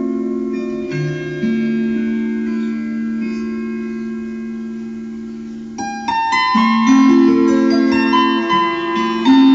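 Slow keyboard music: a held chord fades gently for about six seconds, then a new phrase of notes steps upward.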